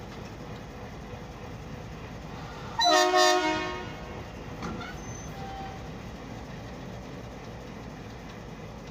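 Indian Railways WDM-3A diesel locomotive running steadily, sounding one short, loud horn blast about three seconds in that dies away within a second.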